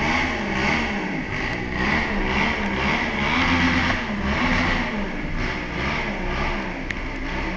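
KTM Duke motorcycle's single-cylinder engine revving up and down about once a second as the bike rolls off slowly.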